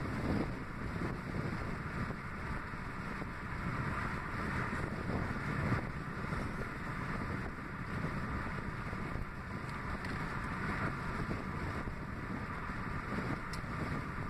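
Steady rush of wind and road noise inside a moving car, with wind from an open window buffeting the microphone.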